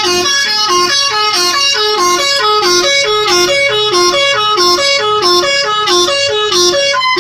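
Telolet musical horn on a pickup truck playing a quick, repeating melody of stepped notes, several notes a second, loud and without pause.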